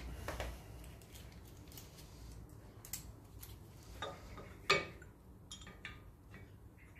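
A few light metallic clicks and taps as a bolt is fed by hand into a Land Rover Series brake back plate, with the sharpest click about three-quarters of the way through.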